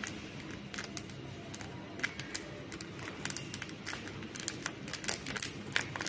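Thin clear plastic cup crackling and crinkling as it is squeezed by hand to loosen a pothos root ball for unpotting. It comes as a string of sharp clicks that grows thicker in the second half.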